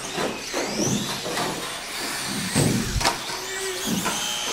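Radio-controlled off-road cars racing, their motors whining up and down in pitch as they speed up and slow down, with several sharp knocks of the cars hitting the track.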